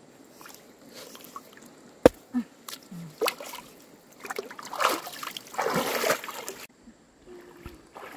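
Water sloshing and splashing in a shallow stream, with a single sharp knock about two seconds in. The splashing is loudest in the second half and cuts off suddenly near the end.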